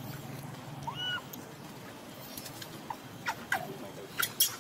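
Baby macaque giving a single short, high squeak about a second in, followed later by several sharp clicks and ticks.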